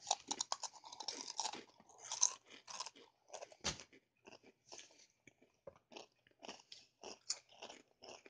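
A person chewing crunchy Doritos tortilla chips: an irregular run of crisp crunches, densest in the first few seconds and sparser after.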